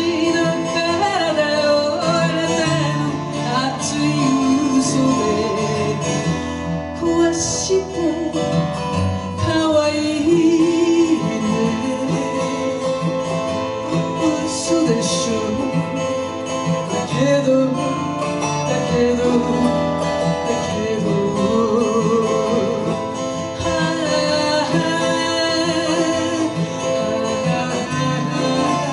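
Live acoustic music: an acoustic guitar playing a slow song while a voice sings a melody over it.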